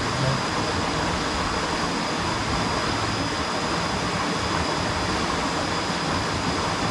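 Steady rush of a small rocky river's flowing water, an even hiss with no breaks, with a thin steady high tone running over it.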